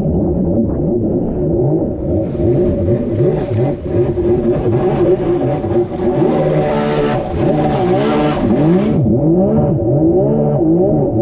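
Jet ski engine revving up and down again and again under changing throttle while being ridden. A rushing hiss joins it from about two seconds in until about nine seconds in.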